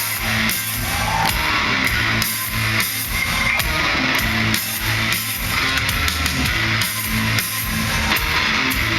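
Rock band playing live: guitar and drums in a steady, driving rhythm.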